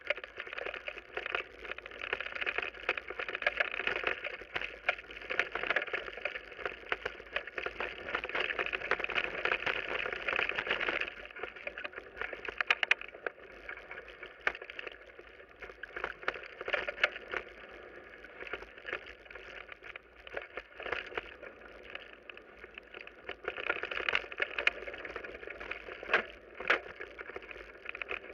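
Mountain bike rolling fast down a dirt and gravel trail: tyres rumbling over the surface with frequent knocks and rattles from stones and roots. It is louder for the first ten seconds or so and again near the end, with a sharp click about halfway through.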